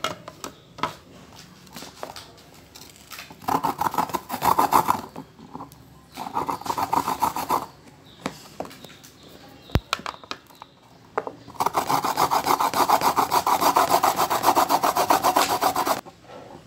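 Food being rubbed by hand across a plastic Tupperware grater, making quick rasping strokes in three runs. The last run is the longest and starts a little under three-quarters of the way through. A single sharp knock comes between the runs.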